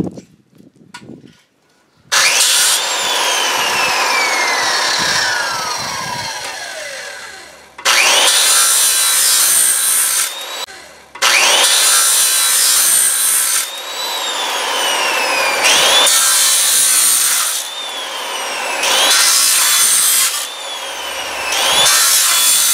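Handheld circular saw cutting through steel roofing strips, a harsh high grinding as the blade bites the metal. It starts about two seconds in and is stopped and restarted twice, its pitch sliding down each time the motor slows.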